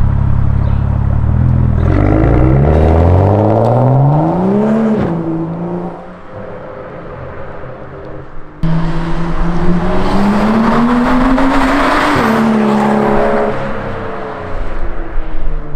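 BMW 135i's turbocharged straight-six through a Berk Technology race catback exhaust, accelerating hard: the note climbs to a sharp drop about five seconds in, goes quieter, then comes back loud and climbs again before falling off near the end.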